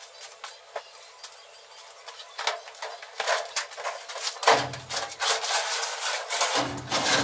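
Irregular knocks, clunks and clatter of a sheet-metal furnace cabinet being lifted out of an SUV's cargo area and handled. The sounds grow busier after the first couple of seconds, with the heaviest thuds about halfway through and near the end.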